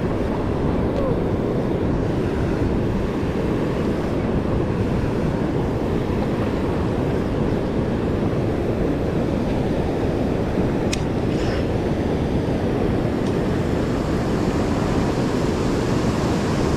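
Steady rush of fast river current and whitewater pouring through a low dam's gates, heard close to the water surface, with a single short click about eleven seconds in.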